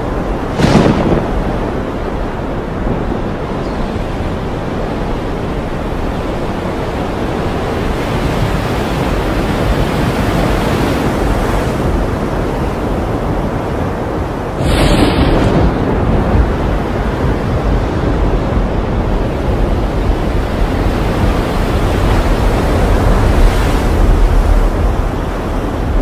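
Stormy sea ambience: a steady rush of wind and waves, broken twice by a sudden loud crash, about a second in and again about halfway through.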